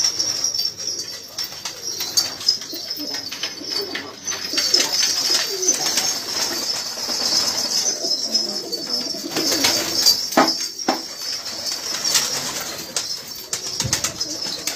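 A flock of domestic pigeons cooing, low warbling calls overlapping one another, with bursts of wing-flapping and rustling as birds shift on their perches. A steady high-pitched hiss runs underneath.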